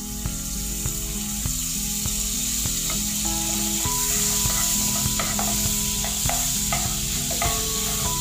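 Battered banana pieces frying in hot oil in a frying pan: a steady sizzle that grows a little louder over the first few seconds, with a wooden spatula stirring them and knocking against the pan now and then.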